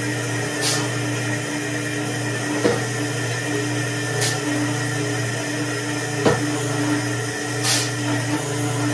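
Homemade foundry sand muller running with a steady hum while a steel shovel scrapes into a pile of green sand about every three and a half seconds, three times, with a sharp knock between scrapes as each shovelful is dumped.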